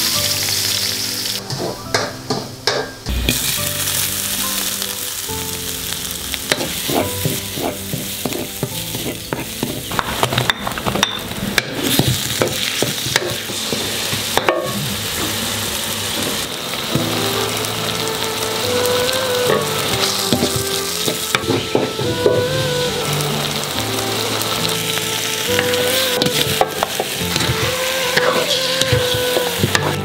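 Chopped red onions frying in hot oil in a wide pan, with a steady loud sizzle. A wooden spatula stirs and knocks against the pan now and then.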